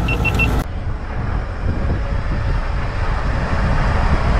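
Vehicle driving along a road, heard from a camera mounted on its outside: a steady low rumble of engine, tyres and wind. Three short high beeps sound just after the start.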